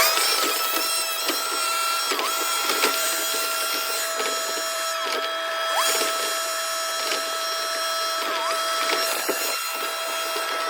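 Excavator working, with a steady whine whose pitch dips briefly a few times as the load changes, over continual clicking and scraping.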